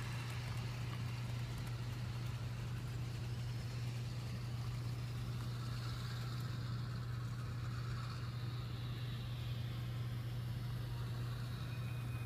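HO-scale model train running on the layout: a steady low hum throughout, with the rumble of wheels and motor fading, then growing again over the last few seconds as the Athearn Genesis EMD GP38-2 diesel comes back round.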